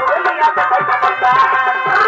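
Purulia Chhau dance music: drums beating quick strokes, about four a second, each with a falling boom, under a high, wavering melody line.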